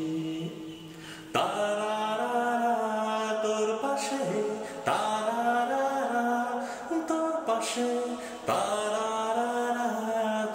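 Song: vocal music with long held sung notes, a new phrase starting about every three and a half seconds.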